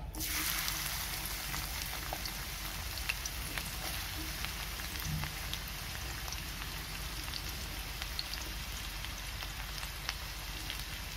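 Chopped onions sizzling in hot oil in a kadai. The sizzle starts suddenly as they go in and runs on as a steady hiss with scattered crackles.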